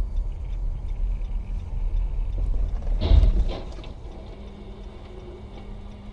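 Car cabin road and engine rumble while driving on a slushy road, with a single sudden loud thump about three seconds in.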